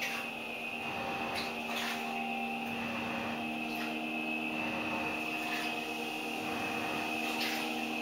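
Washing machine running: a steady motor hum with a few brief, irregular swishes.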